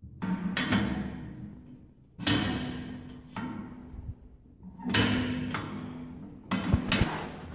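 Four sharp metallic clanks, each ringing out for a second or more, from the homemade cement mixer's tilt mechanism: the steel drum is being tilted and its spring-loaded locking pin catches in the notched angle plate.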